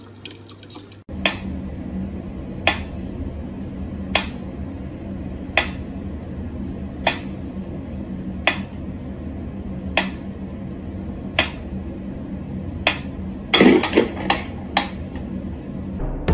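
Mechanical pendulum metronome ticking slowly, about one tick every second and a half, over a steady low hum. Near the end comes a quick flurry of louder knocks and clatter.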